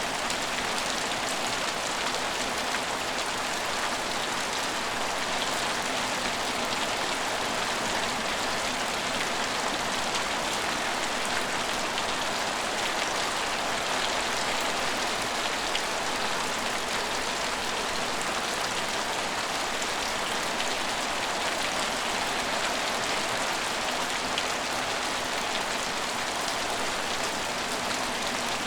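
Steady rain falling and pattering on surfaces, an even hiss that holds without change.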